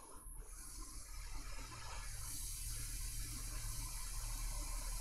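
Hot air station blowing a steady hiss onto an iPhone logic board, heating it until the solder melts, with a low hum underneath. The hiss grows stronger and brighter about two seconds in.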